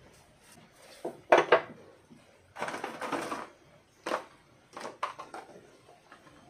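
Short clicks and clatter, loudest a pair of sharp clicks about a second and a half in, with a scraping crunch about a second later. The sounds are steel pliers working a tie wire and being set down on a wooden table, and gravel shifting in a plastic bonsai pot as a rock is pressed into it.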